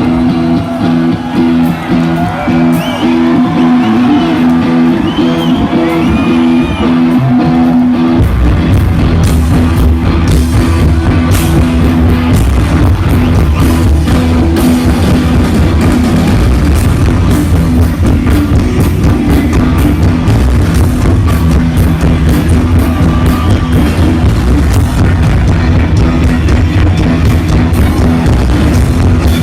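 Rock band playing live. For about the first eight seconds it plays held notes with sliding pitches over them, then the drums and bass come in and the full band plays on steadily.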